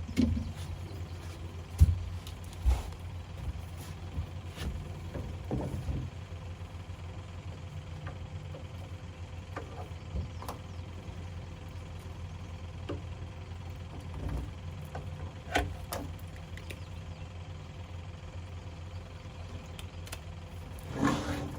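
Boat motor running steadily at low speed, a low hum, with a few short knocks near the start and about two thirds of the way through.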